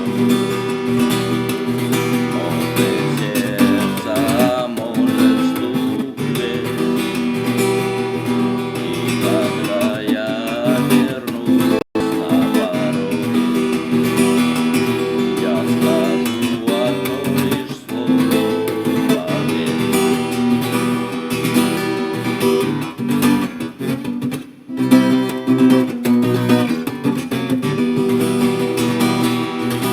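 Background music led by an acoustic guitar, plucked and strummed.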